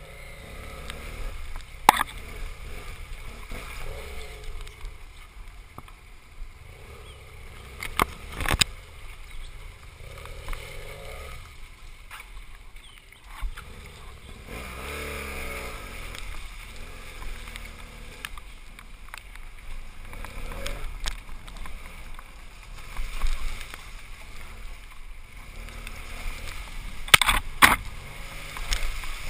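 BMW GS parallel-twin motorcycle engine running at low revs along a muddy, flooded trail, its pitch rising and falling with the throttle, over the rush of tyres and water. A few sharp knocks stand out, the loudest near the end as the bike rides through standing water.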